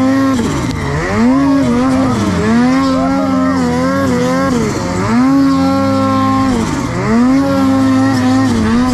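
Turbocharged 850 two-stroke snowmobile engine held at high revs under load in deep snow. About four times its pitch drops sharply and climbs back as the throttle is eased and reopened.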